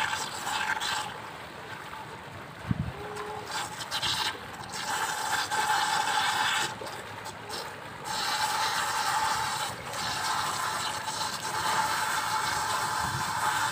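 Water splashing as a swimmer kicks and strokes across a shallow pool, coming and going in uneven spells, with a short low thump about three seconds in.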